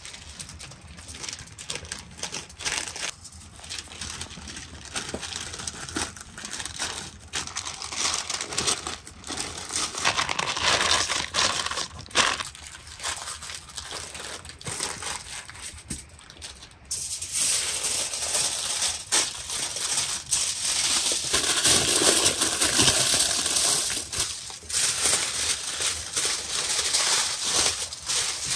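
Baking paper rustling and crinkling as it is folded and pressed around a raw lamb leg. A little past halfway it gives way suddenly to louder, brighter crinkling of aluminium foil being wrapped and crumpled around the package.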